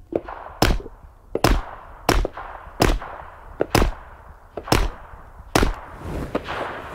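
Seven 9mm pistol shots from a Faxon Hellfire FX-19, fired at a steady pace of about one every 0.8 seconds, the muzzle fitted with a Liberty Centurion suppressor.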